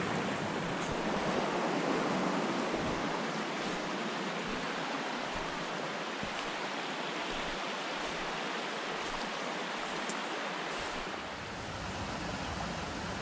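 Steady rushing of a small rocky brook, water running over stones.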